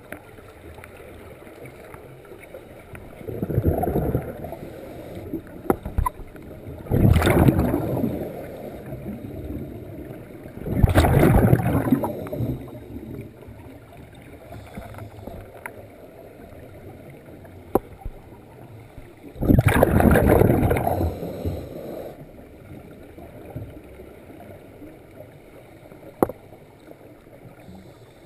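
Scuba regulator exhaust bubbles from the diver holding the camera, heard underwater: four exhalations, each a bubbling rush lasting a second or two, several seconds apart, over a low steady hiss, with a couple of sharp clicks.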